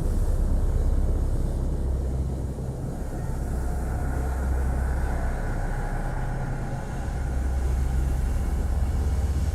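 Police cruiser driving on an unpaved road: a steady low rumble of engine and tyres that swells and eases slightly.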